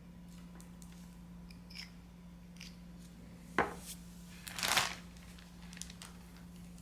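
Small handling sounds of gluing work at a tabletop: light clicks and taps from the super glue bottle and baking soda, a sharp click about three and a half seconds in, then a short rustling hiss, over a faint steady hum.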